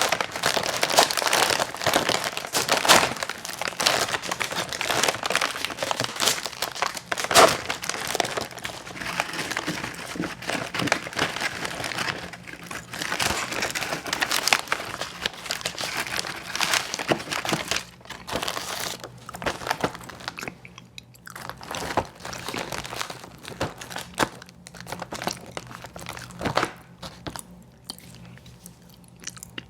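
Close-miked crinkling and crunching from an ice cream sandwich being handled and eaten: a dense, crackly stretch, thinning to sparser, quieter crunches over the last third.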